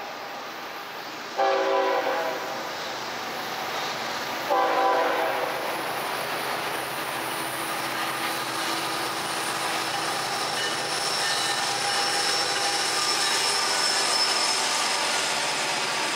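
Florida East Coast Railway freight train's horn giving two short toots, about a second and a half in and again near five seconds. Then the diesel locomotives and a long string of freight cars pass with a steady rumble that grows louder as they come by.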